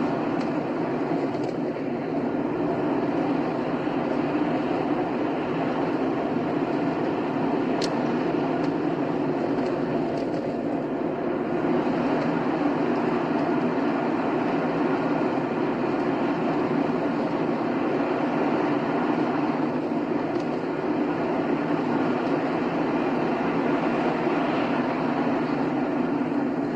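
Car driving along a highway: steady, unbroken tyre-on-road and engine noise, with a faint click about eight seconds in.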